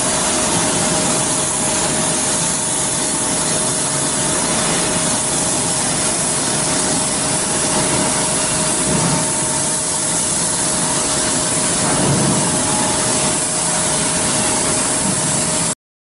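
Portable CNC cutting machine's torch cutting through steel plate: a steady hiss with a steady tone underneath, cutting off suddenly near the end.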